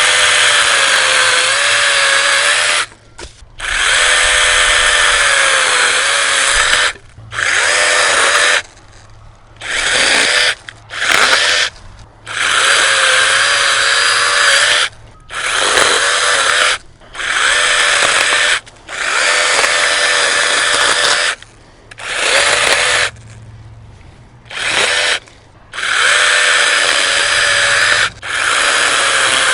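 ORBLON 6-inch brushless battery mini chainsaw, running on a DeWALT 20V battery, cutting through a branch. Its motor whine comes in more than a dozen bursts of one to three seconds, stopping and starting with short gaps, and the pitch wavers as the chain cuts.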